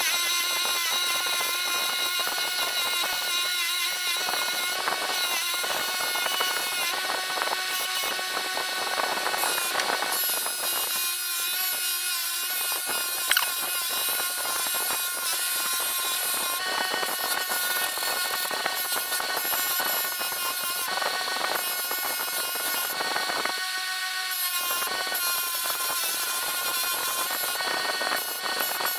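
Bench grinder running with a wire wheel and a cloth buffing wheel, its steady motor whine over a rasping noise as a steel screwdriver shaft and wooden handle are held against the spinning wheels. The rasping eases off briefly a few times as the piece is lifted away.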